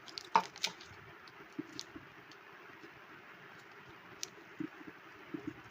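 Handling noise from a corded electric drill and its chuck key: scattered light clicks and taps, a few in the first second and then sparse ones, with a few soft knocks near the end.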